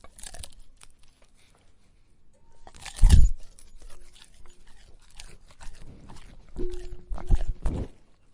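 A dog eating, with irregular crunches and wet chewing clicks. One loud crunch comes about three seconds in, and a quick run of crunches follows near the end.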